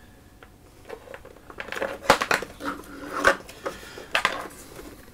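Irregular clicks and clatter of power cables and their plugs being handled among the pedals of a guitar pedalboard, starting about a second in, with sharper knocks about two, three and four seconds in.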